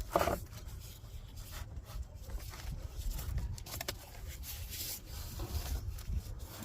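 Rubbing and scraping with scattered clicks as a 17 mm wrench works on the oil drain plug of a motorcycle, with a brief squeak at the start.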